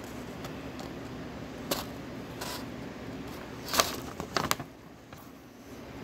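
A paper instruction booklet being handled: a few short crackles and taps of paper, the loudest about four seconds in, over a steady low room hum.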